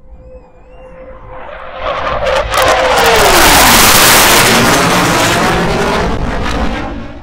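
Two Blue Angels F/A-18 jets making a low pass overhead. The jet noise swells over about two seconds and is loudest as they pass. A whining tone drops in pitch as they go by, then the noise fades away.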